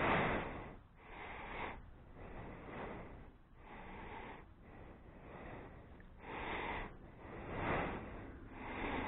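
A man breathing close to the microphone, one noisy breath in or out about every second.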